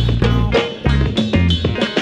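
Upbeat background music with a steady, quick beat and a moving bass line.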